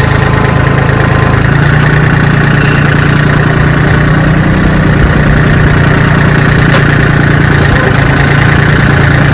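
John Deere 770 compact tractor's three-cylinder diesel engine running steadily, heard up close.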